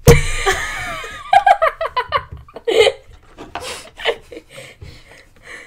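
Girls laughing hard into a close microphone: a loud outburst at the start, then rapid pulsed giggling that fades into quieter laughs.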